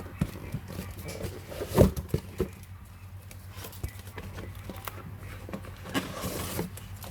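Scattered knocks and clicks from handling a parcel during unboxing, the loudest about two seconds in, over a steady low hum.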